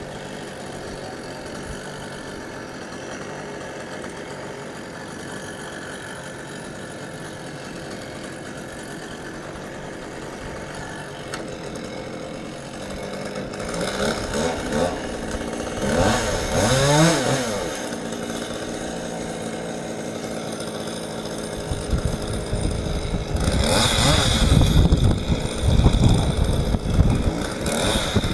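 Chainsaw engine running steadily at a low level, revved up and down a couple of times about halfway through, then running hard and loud with shifting pitch over the last quarter, as when cutting.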